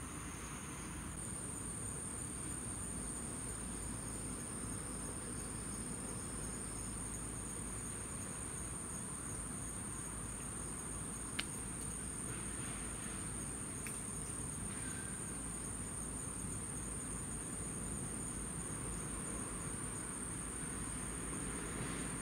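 Steady, high-pitched chorus of insects trilling without pause, with a single sharp click about halfway through.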